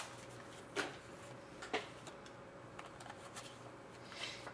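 Hockey trading cards handled and slid apart in the hands: faint soft ticks of card edges, with two sharper clicks about one and two seconds in.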